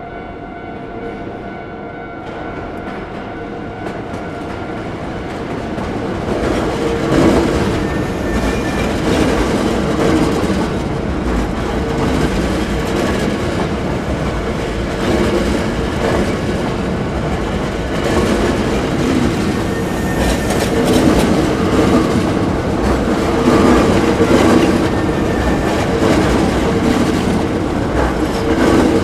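A Hankyu electric train passing over a level crossing. Its rumble builds over the first few seconds and stays loud, with the wheels clattering over rail joints. The crossing's warning bell tones can be heard at first, then are drowned out.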